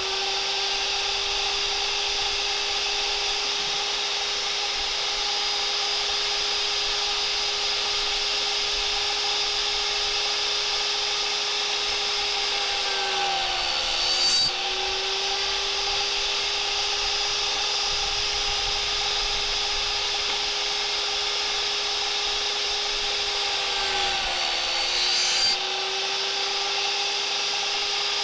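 Table saw running steadily, its blade cutting spline slots through the corners of a wooden picture frame held in a spline jig. The motor pitch sags briefly and the sound gets a little louder as the blade cuts under load, once about halfway through and again near the end.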